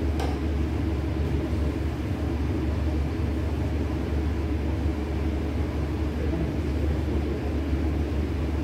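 A steady low rumble that holds even, without breaks or changes.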